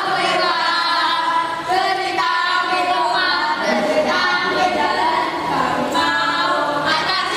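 A group of children singing a song together in unison, unaccompanied, in held sung phrases.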